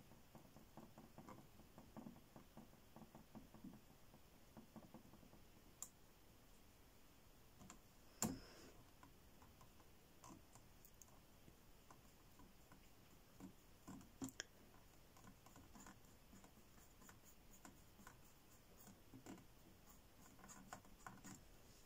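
Near silence with faint scratching and small clicks: a fine detail brush stroking and dabbing acrylic paint onto a painting board. One sharper tap about eight seconds in, and two more near the middle.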